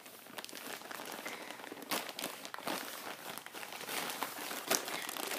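Packaging crinkling and rustling as it is handled, with many small crackles and a few sharper crunches.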